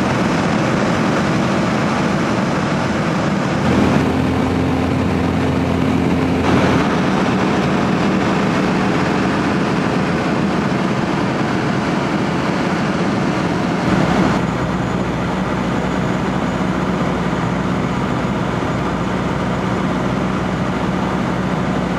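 Cockpit noise of a Robin HR200 light aircraft in flight: the piston engine and propeller drone steadily, with a few sudden shifts in tone and a slight drop in level about fourteen seconds in.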